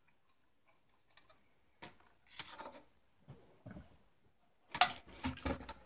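Handling noise from the plastic parts of a dome security camera being moved and set down on a tabletop: a few faint ticks, then scattered clicks and short clattering knocks, the loudest cluster coming near the end.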